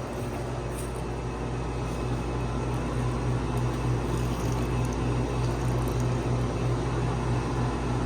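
Carrier Gemini Select split-system condensing unit running normally: a steady low hum from the compressor under the rush of its condenser fans, growing slowly louder.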